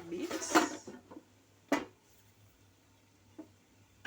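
Metal cooking pot and lid clinking for about a second, then one sharp clink, as the stew pot is covered; after that only a faint hum.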